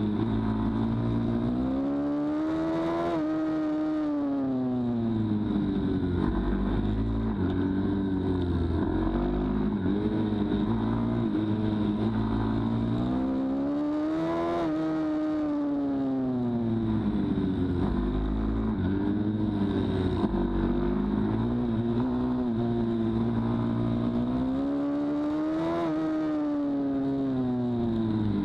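Pit bike's single-cylinder engine heard from on board, its revs rising and falling through the corners of a tight track. Three times the pitch climbs steadily for a couple of seconds as it accelerates, then drops away as it backs off.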